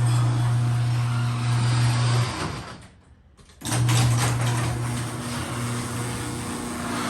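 LiftMaster 8155 garage door opener running a sectional garage door, a steady motor hum under the noise of the moving door. About two and a half seconds in it dies away almost to silence, then starts again abruptly about a second later and runs steadily on.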